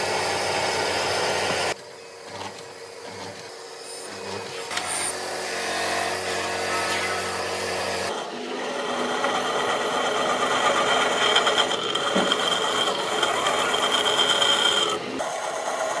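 A power tool running on wood in several short stretches, each starting or stopping abruptly: about two seconds in the sound drops to quieter scraping, and about eight seconds in it rises again to a louder run with a steady high whine.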